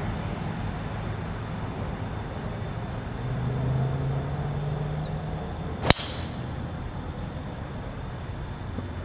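Golf driver striking a ball off the tee: a single sharp crack about six seconds in, over a steady high-pitched insect hum.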